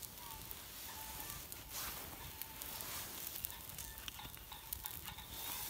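Campfire-side cooking: a steady sizzling hiss with scattered crackles.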